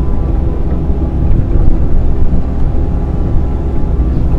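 Excavator's diesel engine and hydraulics running steadily under load, a loud continuous rumble with a faint steady tone above it.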